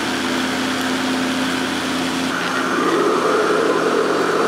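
Electric blender running at full speed, blending a liquid watermelon ice-cream mixture of watermelon pulp, condensed milk and cream. A steady motor whir with a churning of liquid; about halfway through the sound shifts and grows a little louder.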